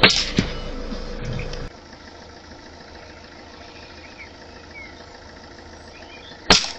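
Two .22LR subsonic rifle shots: one right at the start, followed a moment later by a smaller thud, and another near the end. Between them, faint insect buzzing.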